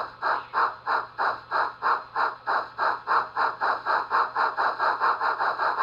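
Steam exhaust chuffs from a Tsunami 2 sound decoder, played through the small speaker inside an HO scale Southern Pacific rotary snowplow model. The chuffs are loud and even, and they quicken from about three to about five a second.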